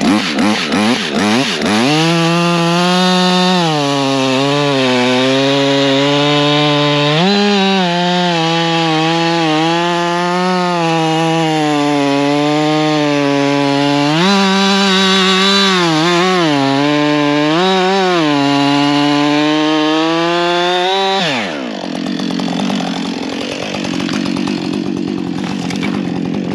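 Husqvarna 562 XP two-stroke chainsaw revving up to full throttle and running flat out, its pitch sagging and recovering again and again as it works through wood. About 21 seconds in the throttle is released and the engine winds down to a low idle.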